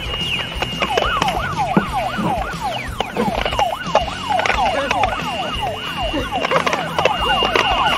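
Several electronic yelping tones, each sweeping quickly up and down in pitch, overlapping one another over a steady high beep, with scattered sharp clicks.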